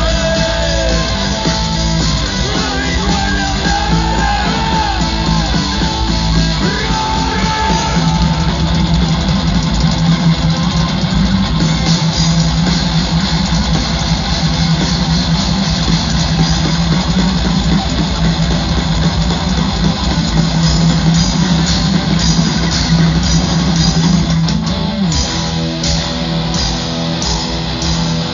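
Live heavy metal from a band: distorted electric guitars, bass and drum kit. For the first several seconds a lead guitar plays a melody with bent notes over the riff. After that the band plays on steadily, and the riff changes about 25 seconds in.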